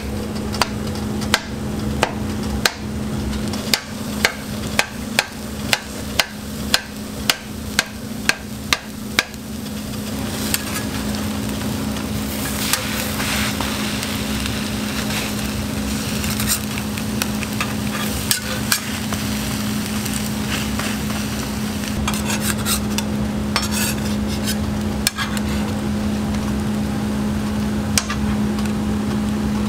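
Steel spatula striking and chopping on a flat griddle, about two sharp clicks a second for the first ten seconds, as a cabbage, carrot, ham and egg mixture fries. After that the sizzling grows louder, with occasional scrapes and clicks of the spatula, over a steady low hum.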